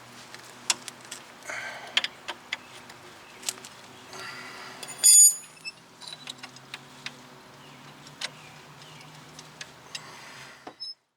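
Hand tools clicking and clinking on metal as nuts are tightened by hand, with irregular sharp ticks and one louder metallic clank about five seconds in.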